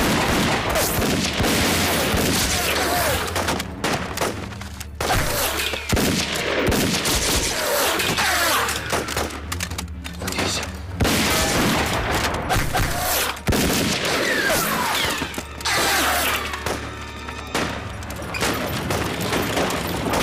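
Battle sound effects: rapid, overlapping rifle gunfire volleys, with heavy thuds mixed in.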